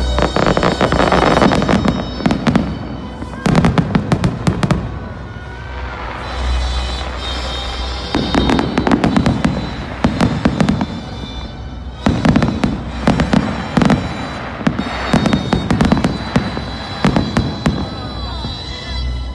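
Fireworks display: salvos of rapid crackling and popping with low booms, coming in bursts of a second or more with short lulls between, and a few brief whistles.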